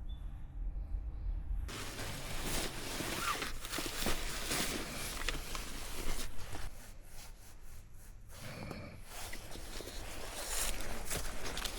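Handling noises: an irregular run of rustles, clicks and knocks as things are moved about by hand, starting suddenly about two seconds in after a low steady rumble.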